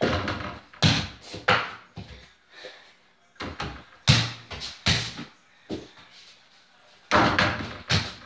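A mini basketball thudding against an over-the-door hoop and the door beneath it, and bouncing on the floor: a string of sharp thumps, several coming in quick pairs.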